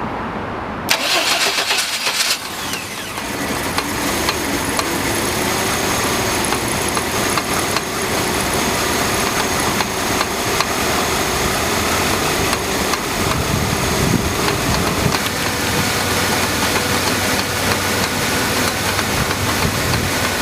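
GMC Jimmy's 4.3-litre V6 cold start: the starter cranks briefly about a second in, the engine catches and then idles steadily with an intermittent ticking knock, which the owner suspects is the hydraulic lifters on the cold engine.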